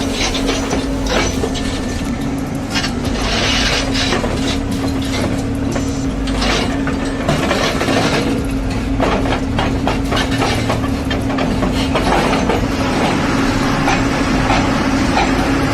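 Heavy machine's engine running with a steady hum, with frequent irregular metallic clanks and knocks.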